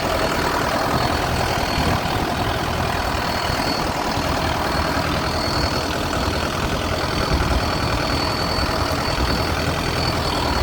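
Boat engine running steadily, a continuous drone with a thin high whine over it.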